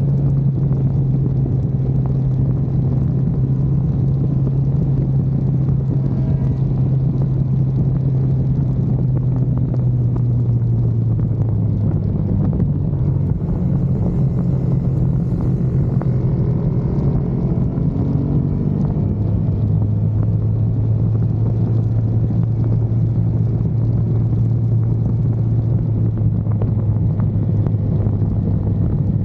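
Car engine running under way on a race track, a steady drone whose pitch steps up about eleven seconds in and settles to a lower note about two-thirds of the way through, as the car changes speed and gear.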